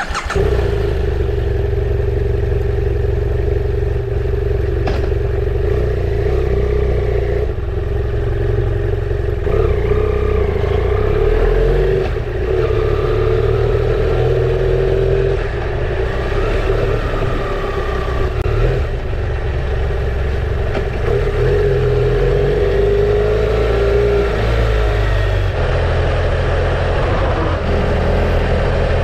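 BMW F800GS parallel-twin engine running under way, its note rising and falling with the throttle, over a heavy rumble of wind on the microphone.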